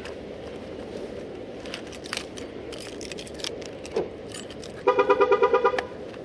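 Keys jingling with light clicks of handling, a dull thump about four seconds in, then about a second of rapid pulsed beeping, roughly ten pulses a second.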